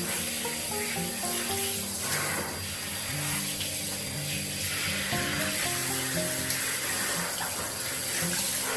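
Handheld shower head spraying water over a baby monkey's fur, a steady hiss of running water. Background music with short melodic notes plays along with it.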